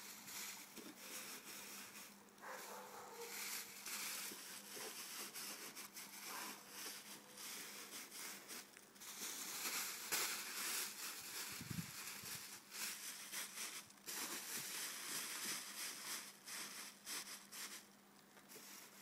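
Plastic bags rustling and crinkling in irregular bursts as they are handled and wrapped, over a faint steady low hum.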